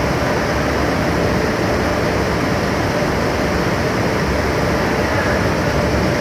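Steady machinery noise, a loud even rumble and hum with no strokes or changes.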